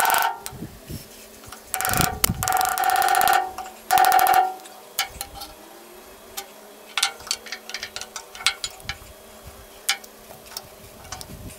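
Screwdriver prying at the old lower seal on a Bush Hog gearbox's output shaft: several shrill metal-on-metal squeals in the first half, then scattered light ticks and clicks.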